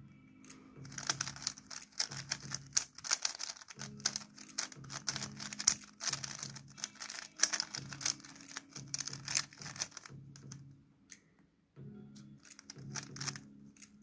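A stickerless 3x3 speed cube's plastic layers are being turned fast by hand, a dense rattle of clicks and clacks that stops briefly about eleven seconds in, then starts again. Background music plays throughout.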